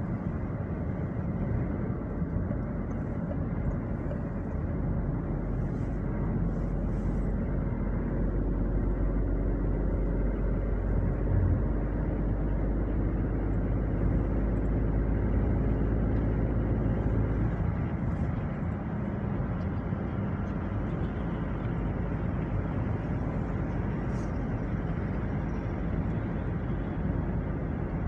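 Steady road noise of a car driving at speed, heard from inside the cabin: a low rumble of tyres and engine. The deepest part of the drone eases about two-thirds of the way through.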